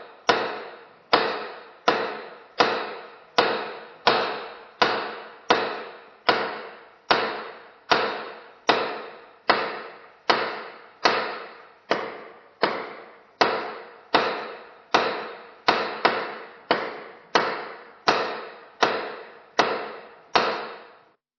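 Hammer blows struck one after another at an even pace, about one every three-quarters of a second, each with a short ring as it dies away. The blows stop just before the end.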